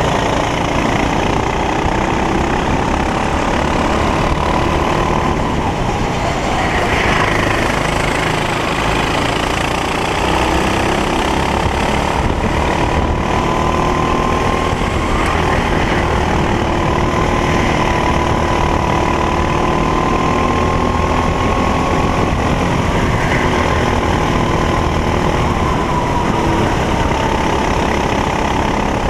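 Racing kart engine running hard on a lap, its pitch climbing slowly and then dropping back several times, over a steady rushing noise.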